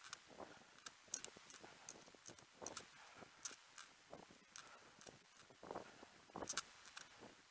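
Faint footfalls of a person running: a loose rhythm of soft thuds and sharp clicks, about one to two a second.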